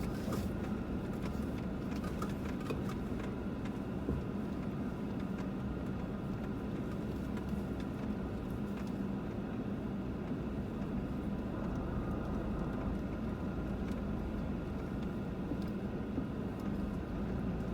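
Vehicle engine running steadily while driving slowly over a very bumpy dirt road, with a few light knocks and rattles from the bumps.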